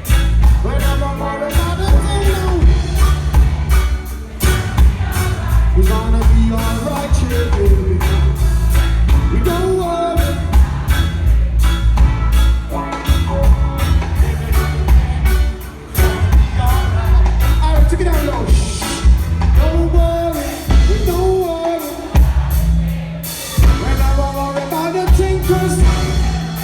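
A live reggae band playing, with a heavy, pulsing bass line and drums under a wavering melody line.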